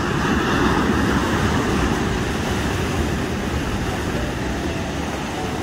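Ocean surf breaking and washing up a sandy beach: a steady rushing of waves, a little louder in the first two seconds.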